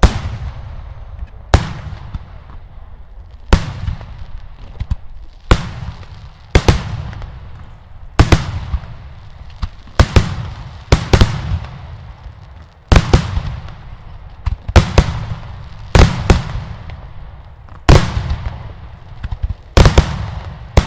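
Daylight fireworks display: loud explosive shell bursts going off one after another, about one or two a second and sometimes in quick pairs, each bang trailing off in an echo.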